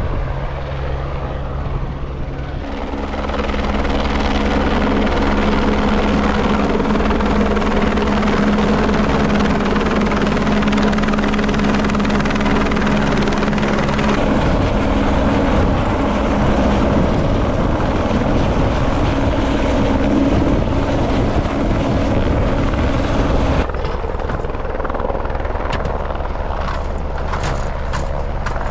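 Helicopter running close by with a steady rotor and turbine sound, heard in a few shots that switch abruptly, about three seconds in, halfway through and again near the end.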